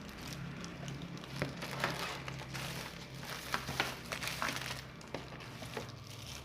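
Packaging crinkling and rustling with scattered small clicks as camera accessories are handled, over a low steady hum.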